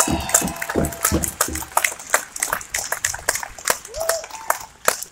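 Crowd applauding with a few shouts and whoops, thinning out near the end.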